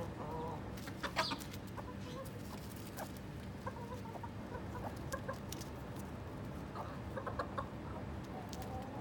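Backyard chickens clucking softly in short calls as they feed on lettuce, with scattered sharp clicks, the loudest about a second in.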